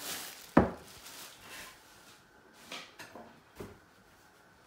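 Kitchen utensils and containers being handled and set down: one sharp knock about half a second in, then three lighter knocks over the next few seconds.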